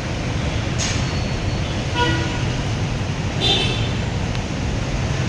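Road traffic on a rain-flooded street: engines rumbling under a steady wash of noise, with a short car horn toot about two seconds in and a brief higher tone or squeal a moment later.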